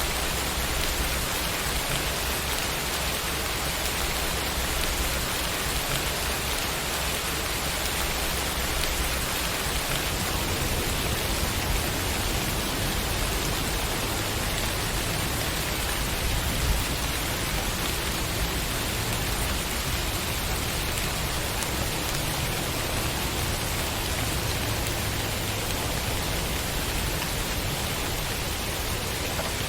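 Steady rain falling on a surface, a dense even hiss of drops, with one slightly louder drop or tap about seventeen seconds in.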